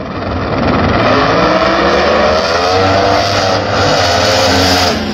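Two no-prep drag cars running side by side down the strip at full throttle. The loud engine note rises for the first few seconds, then falls as the cars go past and away.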